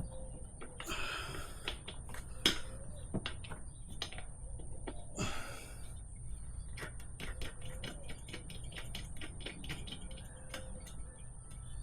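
Irregular light clicks and taps with two short scraping rustles, from hands working a motorcycle inner tube and tire during fitting. A faint steady high whine sits in the background.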